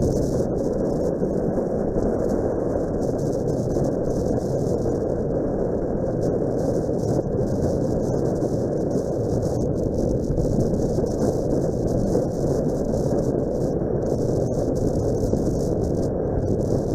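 Steady wind rush on the microphone of a dashcam on a moving motorcycle, with the Suzuki Grasstracker Big Boy's single-cylinder engine running underneath.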